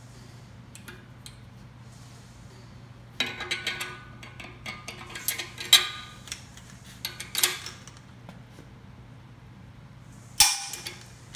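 Steel tools clattering and clicking as an action wrench is slid into a rifle action and a torque wrench is fitted to it, then a single loud, sharp snap near the end: the torque wrench clicking over at its 225 ft-lb setting as the action is tightened onto the barrel.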